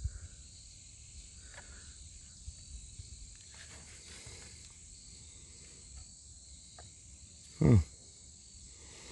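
Steady high-pitched chirring of insects in the background, with a few faint clicks from a plastic battery pack being handled. There is one short, louder low sound about three-quarters of the way through.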